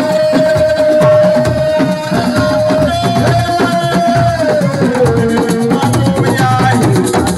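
Assiko band music: a dense, even rhythm of hand drums and shakers under one long held melodic note that steps down in pitch twice.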